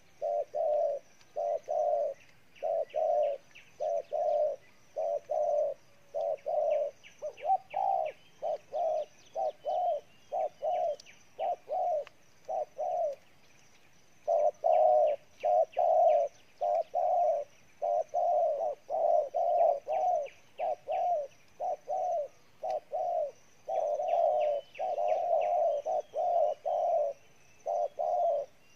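Spotted dove giving its hard, excited display coo ('gù'): a fast run of short, low coos, about two to three a second. There is one pause of about a second near the middle.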